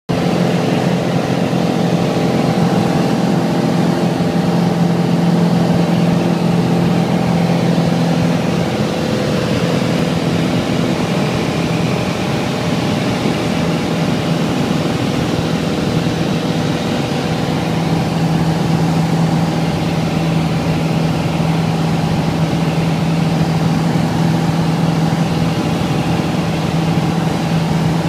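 Piper light aircraft's engine running steadily at low power with a droning hum. About ten seconds in, its pitch wavers, and it settles back to a steady drone a few seconds later.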